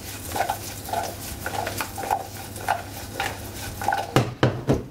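Parsnip slices tossed in a stainless steel wok-style pan, clattering and sliding against the metal about twice a second over a light sizzle of butter. A few sharper knocks of the pan come near the end.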